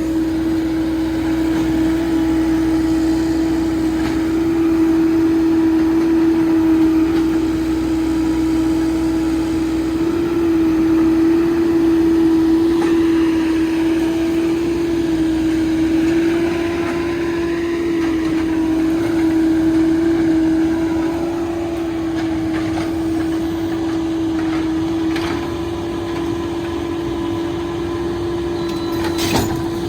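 Cat 308 excavator running steadily, its engine and hydraulics giving a constant droning hum, with a couple of faint clicks near the end.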